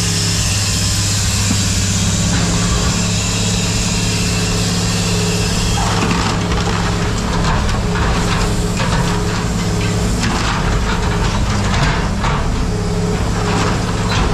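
Heavy machine's engine running steadily, with metal clanking and scraping that starts about six seconds in as scrap metal is moved.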